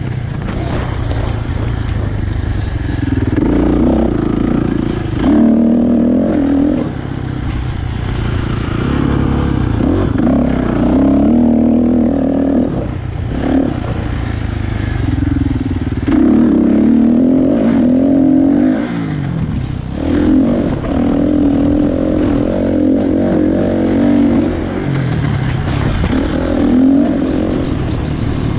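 Kawasaki dirt bike engine being ridden, revving up and easing off over and over, its pitch climbing and dropping with short dips every few seconds.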